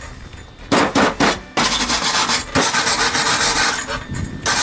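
Hand wire brush scrubbing a fresh weld on a steel VW Beetle decklid, steel bristles rasping on bare metal. A couple of separate strokes come first, then fast, near-continuous back-and-forth scrubbing from about one and a half seconds in.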